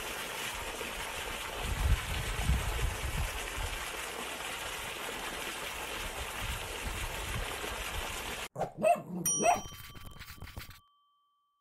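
Steady outdoor hiss with low gusts of wind rumble on the microphone. Later it cuts off abruptly, and a short end-screen jingle plays: a cartoon dog's yips and a few bright chime dings that ring on, ending about two seconds later.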